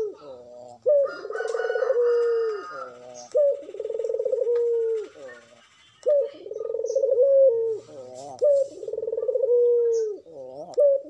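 Puter (domestic Barbary dove) cooing: four coos about two and a half seconds apart, each a short sharp note followed by a long rolling note.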